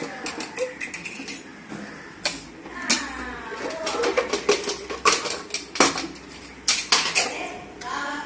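A long-handled steel spoon clinking and scraping against the sides of an aluminium pot as cooked rice is stirred, with many irregular sharp knocks.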